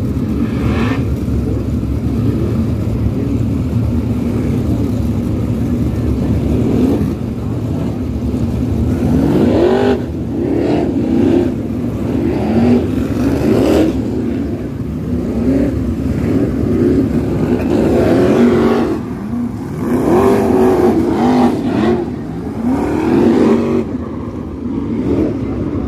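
A field of winged dirt sprint cars racing around the oval, several V8 engines at once rising and falling in pitch as the drivers get on and off the throttle through the turns, swelling louder each time cars pass close.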